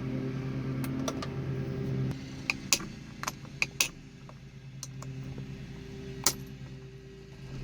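A few sharp clicks and knocks from the steering wheel being worked loose from its column, over a steady low hum that drops away about two seconds in.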